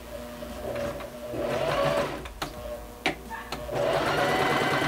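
Singer Simple 3223R domestic sewing machine stitching a straight seam through cotton fabric, a soft-running sound that is not noisy. It runs in spurts: a short run about a second in, a pause with a couple of clicks, then running again near the end.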